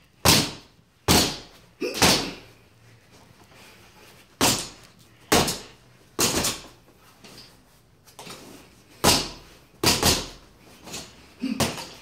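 Boxing gloves hitting a freestanding spring-arm reflex bag: sharp thuds in quick combinations of two or three, about ten in all, with pauses of a second or two between combinations.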